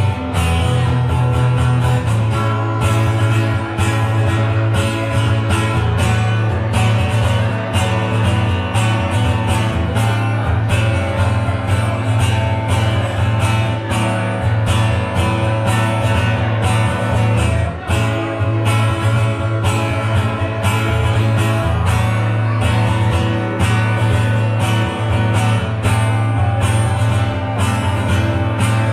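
Live band playing an instrumental passage led by guitar, over a strong bass line and a steady beat of about two strikes a second.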